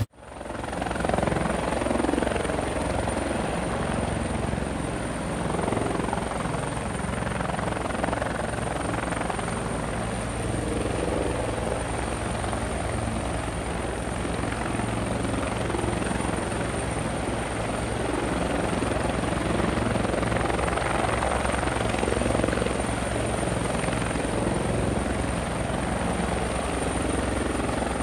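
Multirotor camera drone's propellers buzzing steadily in flight, a continuous whir with a thin high whine over a low hum.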